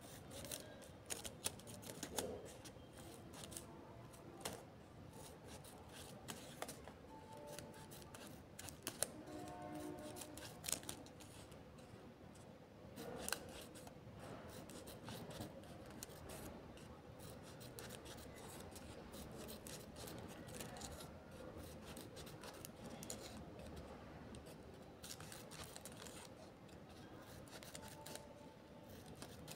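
Quiet hand-handling noises: irregular small clicks and rustles, most frequent in the first half, with a few faint short tones in the background.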